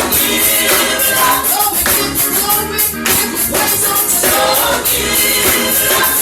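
Gospel praise music with a choir singing over a band, a tambourine shaking along with the beat.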